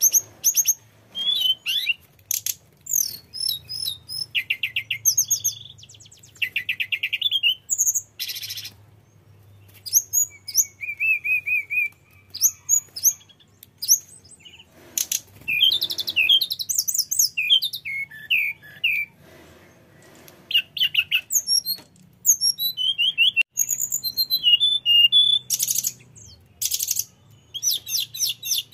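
A hill blue flycatcher singing a long, varied song of rapid whistles and trills, phrase after phrase with short pauses between them.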